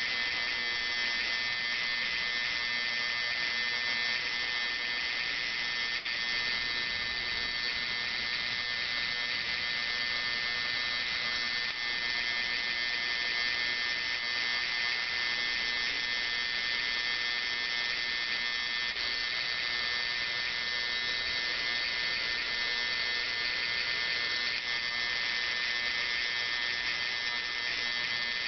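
High-voltage induction coil (Electrotechnic Products ID 300) buzzing steadily as it powers a Crookes discharge tube, a high-pitched, unchanging electrical buzz.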